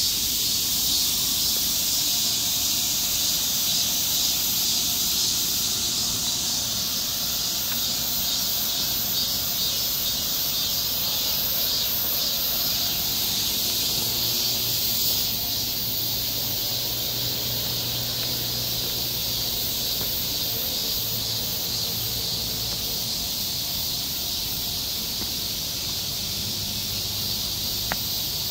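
A steady chorus of summer insects: a dense, high, unbroken buzzing.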